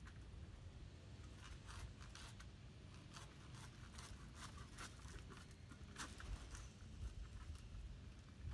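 Faint, irregular dry crackling and rustling, typical of palm fronds moving in a breeze, over a low wind rumble on the microphone.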